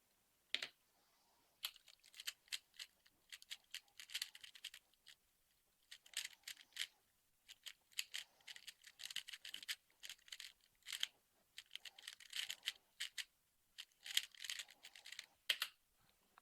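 Rubik's Cube being speedsolved: fast flurries of light plastic clicking and clacking as its layers are turned, with brief pauses between runs of turns.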